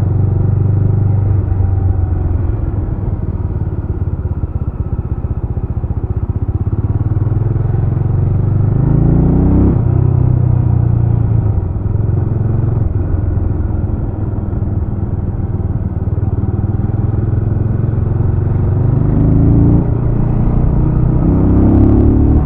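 Jawa RetroTrail 650's single-cylinder engine running while riding. It pulls up in revs about eight seconds in, drops abruptly near ten seconds as a gear is shifted, and climbs again near the end.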